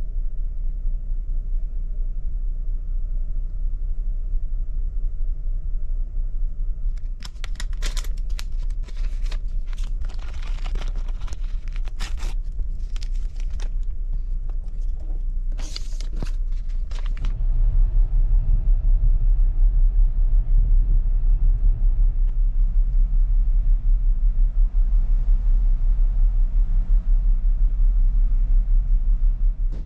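A ferry's steady low engine and hull rumble, with crinkling and tearing between about 7 and 17 seconds in as a foil drip-coffee packet is torn open and the paper drip bag is unfolded. From a little past halfway the rumble gets louder.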